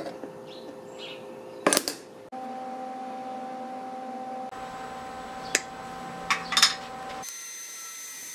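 A few sharp metallic clicks and clanks as steel parts are handled and set in place, over a steady low hum. Birds chirp faintly near the start.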